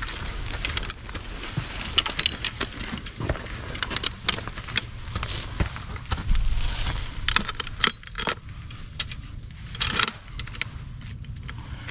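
Metal fittings of a draft-horse harness (buckles, rings and chains) clinking and rattling in many small, irregular clicks as the harness is handled and a strap at the collar and hames is buckled.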